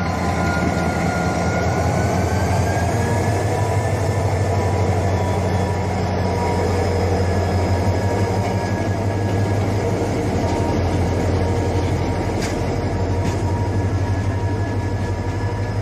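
Diesel-hauled freight train rolling slowly past at close range: a steady low locomotive engine hum and wagon wheel rumble, with a thin steady whine. There are a few sharp clicks near the end as the wheels cross rail joints.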